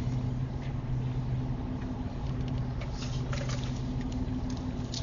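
A vehicle's engine running steadily with a low, even hum, with a few light clicks and rattles about three seconds in.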